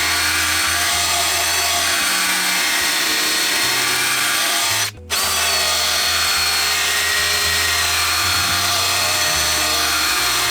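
Electric drill running at high speed with a grinding-stone sharpener attachment, grinding the cutting edge of a steel lawnmower blade clamped in a vise and cutting metal away. The drill cuts off for a moment about halfway through, then runs on steadily.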